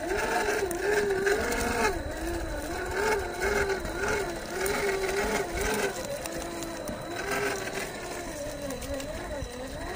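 Whine of an RC rock crawler's electric motor and gear drivetrain (a 550 brushed motor in an MST CFX-W chassis), rising and falling in pitch in short humps as the throttle is eased on and off while it climbs over rocks.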